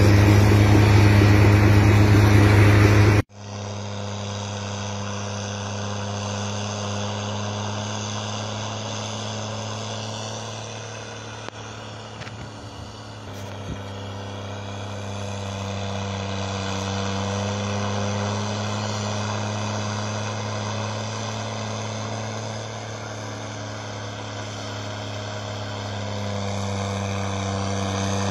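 Rail-mounted snow blower's engine running steadily while it throws snow. The sound is loud at first, drops suddenly about three seconds in, then goes on as a steady drone that swells a little near the end.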